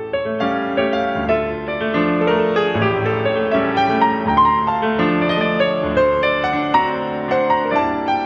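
Solo piano playing: a continuous flow of many quick notes over held low notes.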